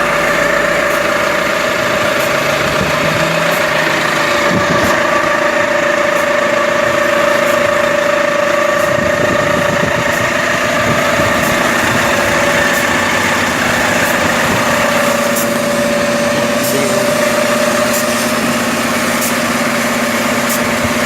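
A motor vehicle running steadily: a constant drone with a steady whine over it that holds one pitch throughout.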